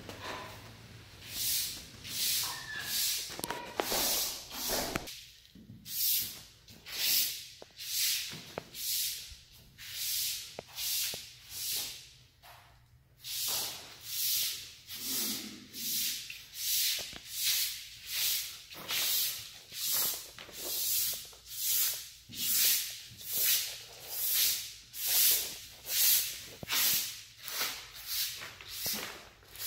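Footsteps on carpeted stairs, a regular soft swish about one and a half times a second, with a short pause about halfway through.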